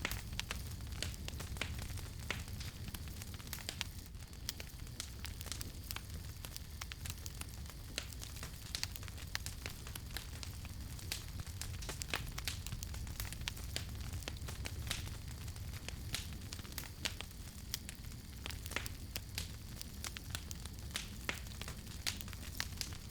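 Campfire burning, with frequent sharp crackles and pops over a steady low rumble of the flames.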